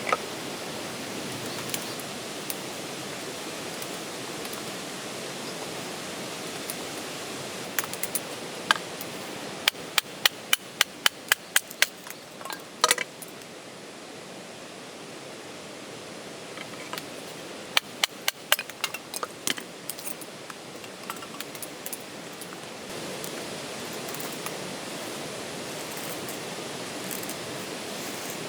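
A steady rushing background noise, with a run of about a dozen sharp knocks at roughly three a second about a third of the way in, and a shorter run of knocks past the middle.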